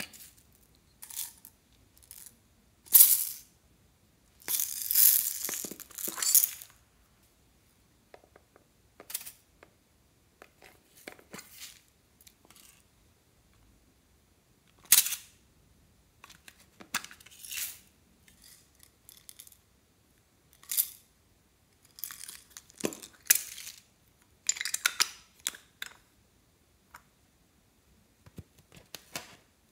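Glitter, beads and small plastic decorations being shaken out and handled over a glass dish of slime: a string of separate short rustles, crinkles and light clinks with quiet gaps between, the longest rustle about two seconds long around five seconds in.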